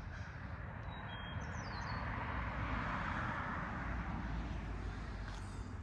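A car passing by on the road, its tyre and engine noise swelling to a peak about three seconds in and then fading. A bird chirps briefly about a second in.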